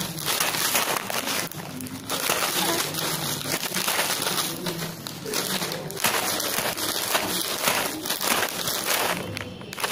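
A plastic snack packet crinkling and rustling as a baby shakes and waves it. The crinkling runs on and off, with short lulls about a second and a half in and again near the end.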